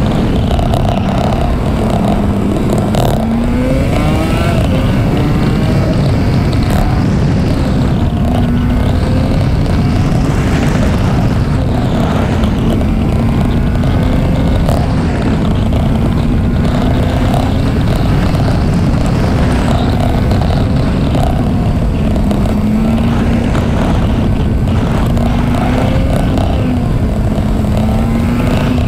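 Honda Varadero 125's small V-twin engine running at road speed, its pitch rising and falling gently with the throttle, under heavy wind rush on the microphone.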